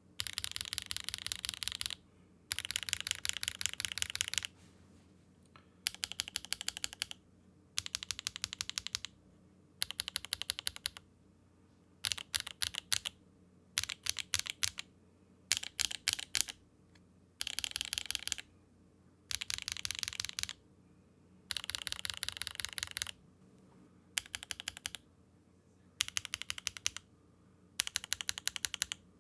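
Mechanical keyboard fitted with HMX switches being typed on in short bursts of fast keystrokes, about a second or two each, with brief pauses between. Several different HMX switches are sounded in turn for comparison.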